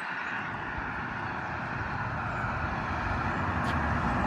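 A semi truck approaching on the road, its engine and tyre noise growing steadily louder.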